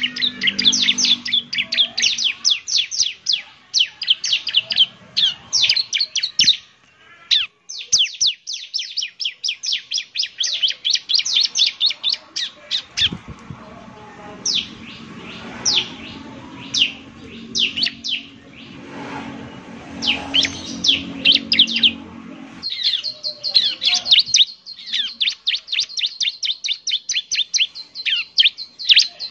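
Ciblek (bar-winged prinia) singing a fast chattering song of rapid, high, down-slurred notes in runs broken by short pauses. A low steady hum sits underneath for several seconds in the middle.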